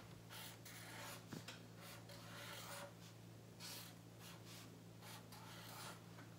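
Felt-tip marker being written on paper: a series of short, faint scratchy strokes as a word is written out, over a faint steady low hum.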